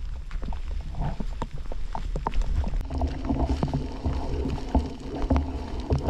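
Wind buffeting the microphone with a constant low rumble, over irregular footsteps and knocks on a rocky trail. A steady low drone joins about halfway through.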